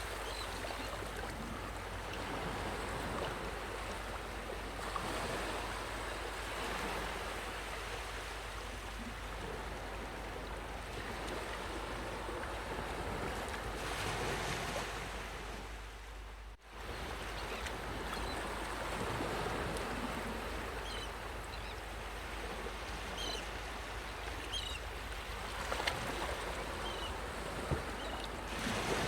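Sea waves washing onto a beach, a steady rush that swells and eases every few seconds, with a brief sudden dropout a little past halfway. A few faint, short, high chirps come in over the surf near the end.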